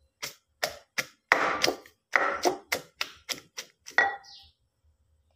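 A wooden pestle pounding green chillies, shallots and garlic in a clay mortar: a run of sharp knocks, about three a second, that stops about four seconds in. The ingredients are only being lightly bruised for a coarse chilli paste.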